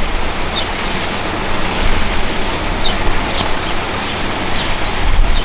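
Wind buffeting the microphone: a steady rushing noise with low rumbles that grow stronger near the end.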